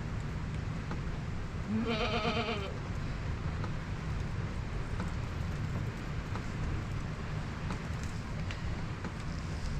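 A single wavering bleat from a goat or sheep, lasting about a second, over a steady low background noise.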